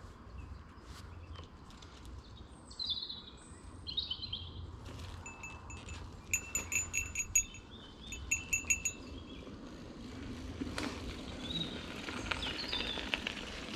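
A bicycle bell rung in two quick runs of rings, about six a second, after a few bird calls. Near the end the crunch of tyres on the dirt trail grows louder as another mountain bike approaches.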